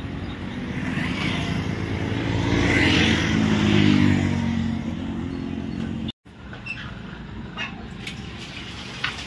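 An engine running, getting louder to a peak around three to four seconds and then easing off. A sudden break about six seconds in leaves a quieter background with a few faint clicks.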